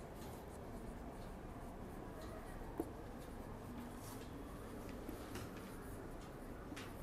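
Marker pen writing on a whiteboard: faint squeaks and scratches of the strokes, with a single light tap about three seconds in.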